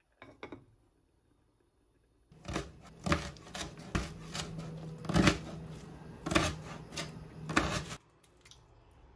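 Chef's knife chopping kimchi on a cutting board: a run of sharp strokes with dull thuds on the board, about two a second, for some six seconds. It is preceded by a brief clink as a ceramic lid is set onto an earthenware pot.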